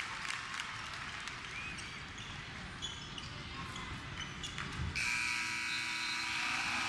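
Gymnasium crowd noise with sneakers squeaking and a basketball bouncing on the hardwood court. About five seconds in, a louder steady electronic scoreboard horn comes on and holds: the final horn as the clock runs out.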